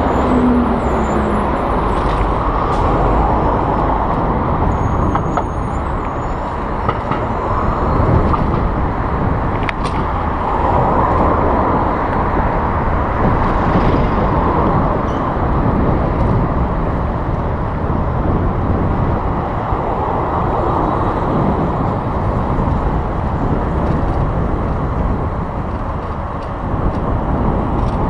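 Wind rushing over the microphone of a bicycle-mounted action camera, mixed with street traffic: cars and a city bus running alongside. A bus engine's note drops away in the first second.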